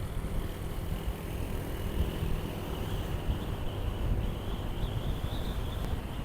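Motorcycle engine running at a steady cruise, with wind rushing over the action camera's microphone.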